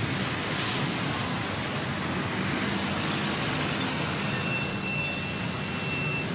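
Jet engines of a taxiing Boeing 747 (Air Force One), a steady distant rumble with a thin high whine briefly near the end.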